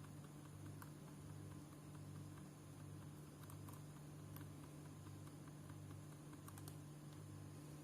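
Faint, scattered taps on a laptop keyboard, the F12 key pressed during start-up to call up the boot menu, over a low steady hum.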